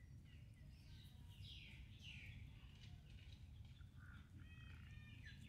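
Faint high animal calls over a low steady rumble of outdoor background: two falling calls about one and a half and two seconds in, then a quick run of short chirps near the end.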